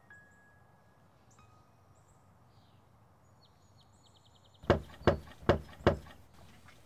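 Birds chirping with thin whistled notes, then, about two-thirds of the way in, four loud knocks on a wooden door in quick, even succession.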